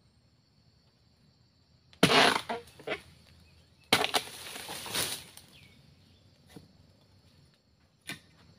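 Long-handled harvesting chisel chopping into the base of oil palm fronds: a few sharp strikes about two seconds in, then another strike near four seconds followed by about a second of rustling and crunching. Insects keep up a steady high buzz.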